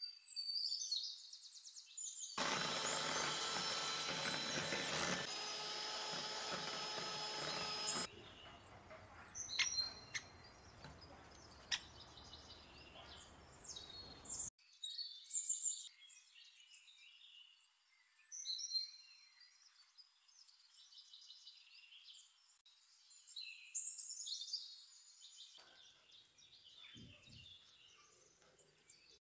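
Electric mixer whipping Italian meringue: the motor runs loudly with a steady whine for about six seconds from two seconds in, then a quieter noise with a few clicks follows until about halfway. Birds chirp at the start and through the second half.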